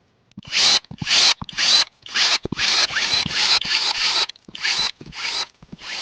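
Rubbing strokes across a surface, about ten in quick succession, each lasting under half a second.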